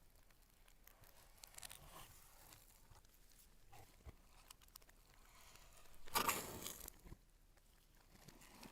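Faint rustling and handling noises of unboxing packaging, with one louder crinkling, tearing sound lasting under a second about six seconds in.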